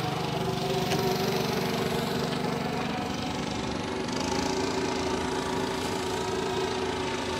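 Small fishing boat's engine idling steadily.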